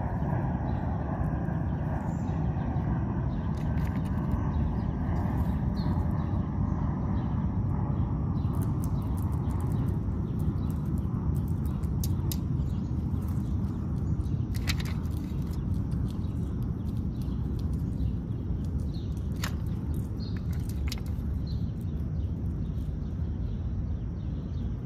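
Outdoor background: a steady low rumble, with an engine-like drone that fades away over the first several seconds. A few faint bird chirps and scattered small sharp clicks follow.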